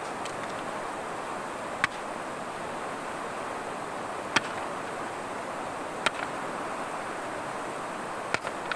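Steady rushing of a fast, shallow river over stones, with a handful of sharp clicks at irregular intervals.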